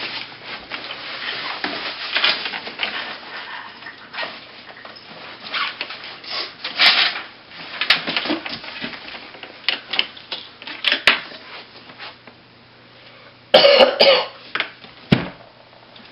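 A person coughing repeatedly in irregular short bursts, with the loudest fit of coughing near the end.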